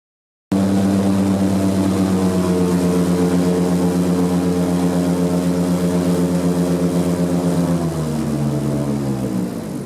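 Airboat's engine and air propeller running at a steady pitch, then throttling down with the pitch falling over the last two seconds.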